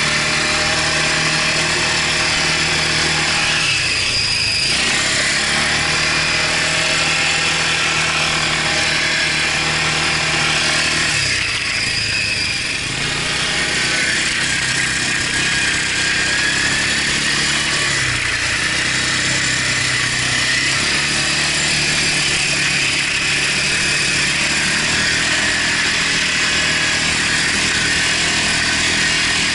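Quad bike (ATV) engine running under way, heard from the rider's seat. Its pitch drops and climbs back about 4 seconds in and again around 12 seconds, with a steady hiss on top.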